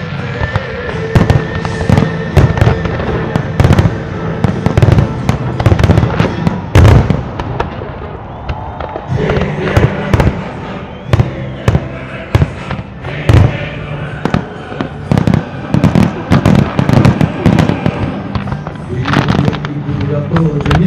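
Aerial firework shells bursting in a rapid, irregular string of loud bangs, thickest in the second half, over a pyromusical soundtrack of music.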